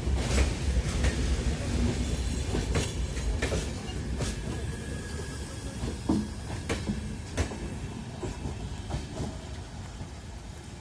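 Long passenger train rolling past, its coach wheels clacking over the rail joints at uneven intervals. The low rumble and the clacks grow fainter as the train moves on.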